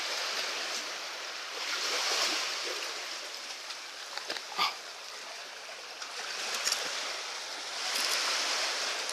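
Sea surf washing onto a sandy beach, the hiss of the wash swelling twice and easing between, with a few light clicks near the middle.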